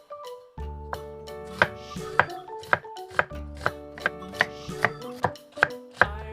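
Knife chopping on a cutting board, irregular strokes about two a second, over light background music that comes in about half a second in.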